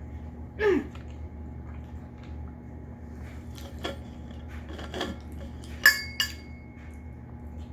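Tableware clinking during a meal: a few soft clicks, then two sharp clinks about six seconds in, the first ringing on briefly. A short falling sound comes near the start, over a steady low hum.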